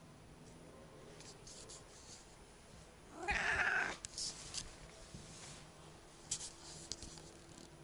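A Siamese cat meows once, a short loud call about three seconds in, close to the microphone, followed by a few faint clicks.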